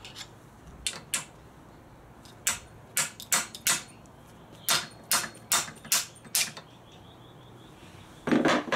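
Hammer striking an Allen key in the damper-rod bolt at the bottom of a Suzuki DR650 fork leg: about a dozen sharp metallic taps in short groups, shocking the bolt loose. A louder, duller knock comes near the end.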